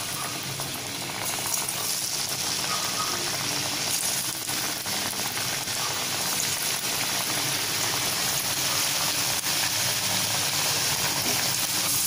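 Potato wedges deep-frying in hot oil: a steady sizzle of bubbling oil that grows a little louder as more wedges are dropped in.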